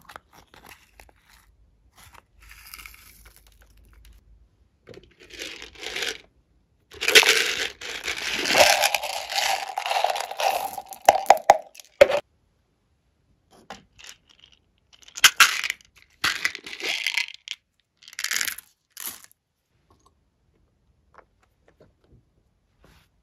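Plastic pearl beads poured onto a tray of slime: one long pour of several seconds, then a few short pours.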